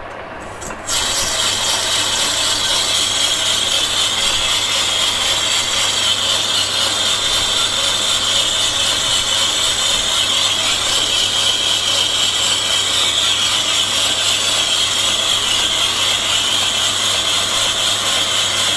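A high-speed steel tool on a lathe cutting the outside diameter of a bronze bar. The cut starts abruptly about a second in and runs as a loud, steady, high-pitched ring over the lathe's low hum.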